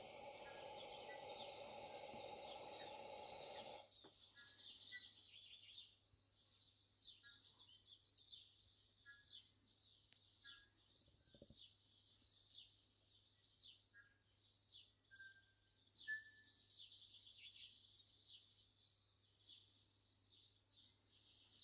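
Coleman NorthStar lantern burner hissing steadily, then cutting off suddenly about four seconds in as the lantern is shut down. Faint bird chirps follow.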